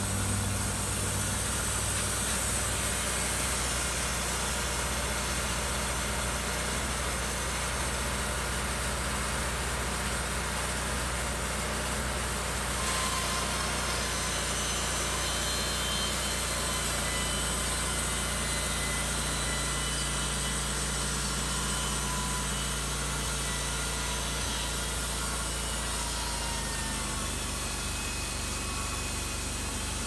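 Timberking 1220 band sawmill's gasoline engine running steadily while the band blade cuts thin siding boards from a southern yellow pine cant.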